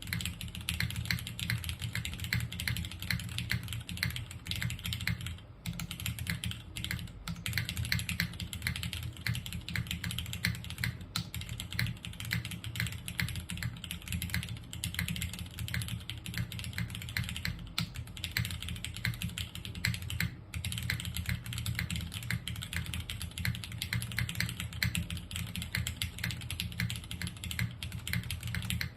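Mechanical keyboard with linear Cherry MX Black switches on a polycarbonate plate, with JTK Sakura keycaps, being typed on quickly and continuously; the rapid keystrokes stop at the very end.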